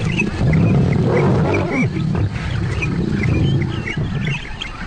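Lions growling and snarling over a warthog kill, a continuous low rumble, as the male claims the largest share of the carcass.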